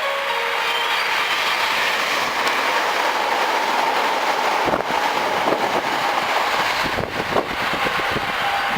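A six-car Hankyu 6300-series electric train passing through the station at speed: a steady, loud rush of running noise. From about halfway through, the wheels clack repeatedly over the track.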